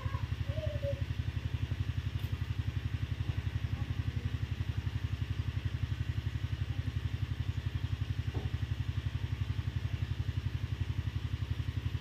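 A small engine running steadily at idle, with a fast, even low pulse.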